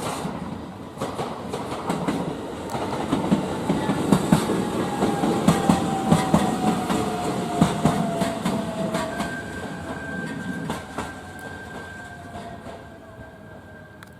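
Electric train running past at close range, its wheels clacking over rail joints. The sound swells, peaks in the middle, then fades away, with a whine that slowly falls in pitch.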